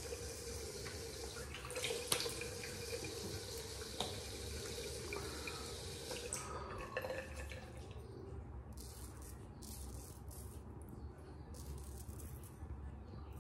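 Tap water running into a sink, stopping about halfway through. Then a kamisori (Japanese straight razor) scraping over stubble on the neck in a run of short strokes.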